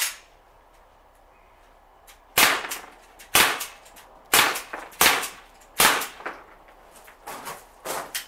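Sig Sauer MPX .177 semi-automatic pellet gun, fed with high-pressure air from a bulk-fill tank, firing a string of single shots, each a sharp crack. Most shots come about a second apart, with a few weaker ones close together near the end.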